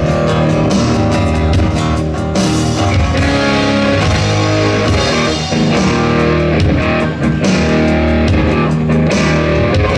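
Live country-rock band playing an instrumental break, guitar to the fore over bass and drums, with a steady beat.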